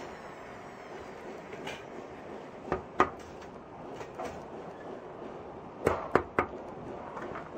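Sharp metal clicks and knocks as the metal frame rails and rods of a dish-drainer rack are handled and fitted together: two about three seconds in, the second the loudest, and a quick run of three near the end, over steady background noise.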